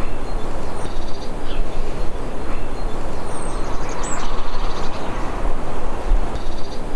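Crows cawing several times over a loud, steady noisy background.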